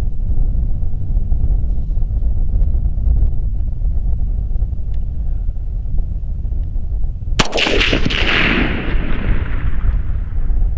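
A single rifle shot from a .300 Blackout AR, a sharp crack about seven seconds in followed by a long rolling echo that fades over a couple of seconds. Beneath it runs a steady low rumble.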